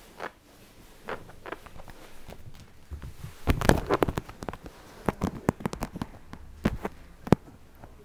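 Scattered sharp clicks, thumps and crackling rustles, densest and loudest around the middle: handling noise close to the microphone while a kitten scuffles and bats at a hand on carpet.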